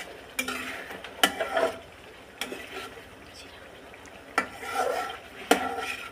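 Long metal spatula stirring a thick curry in a metal karahi, scraping the pan and knocking against its side about once a second.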